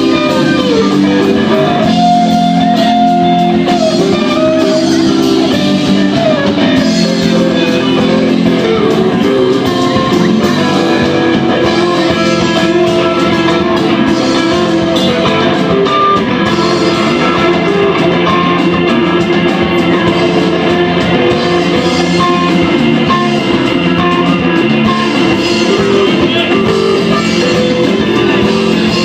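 Live rock band playing, with guitars to the fore and a drum kit underneath; loud and steady.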